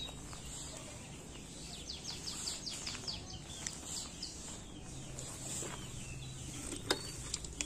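Small birds chirping: a rapid run of short, high, falling chirps about two to three seconds in, with scattered calls before and after. A single sharp click comes near the end.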